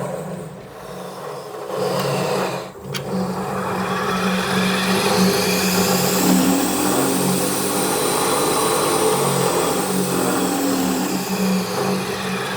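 Morrisflex 2577 variable-speed, double-ended polishing lathe running: a steady motor hum under a whine that rises and then falls again as the speed is turned up and back down.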